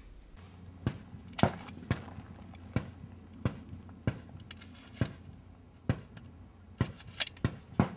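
Gunshots at a shooting range: a string of sharp reports, about one every half second to a second, several coming faster near the end, over a steady low hum.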